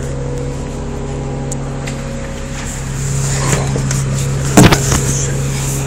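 City bus engine idling with a steady low hum. A brief cluster of sharp knocks comes about four and a half seconds in.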